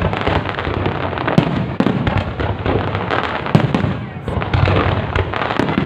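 Aerial fireworks going off in a dense, continuous barrage of bangs and crackles.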